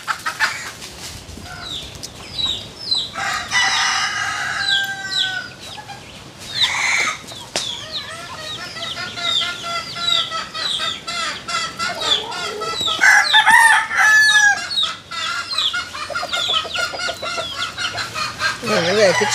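Chickens clucking and a rooster crowing. Short high calls come all through, with a few longer, fuller calls, the loudest about two-thirds of the way in.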